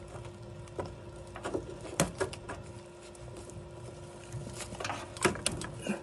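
Scattered small clicks and taps of fingers working a thermistor and its retaining clip onto a water heater pipe, a few sharper knocks about two seconds in and again near the end, over a faint steady hum.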